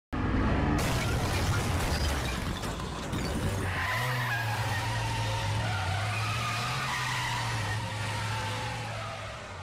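Car sound effect: a sudden burst of noise, then an engine running with tyres skidding, fading out near the end.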